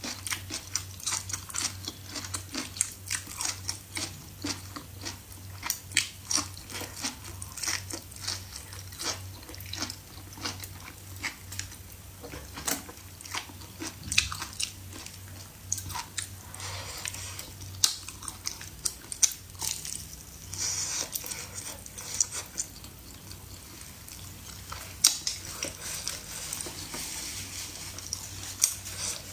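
Close-up eating sounds: biting and chewing, with many sharp clicks a few times a second.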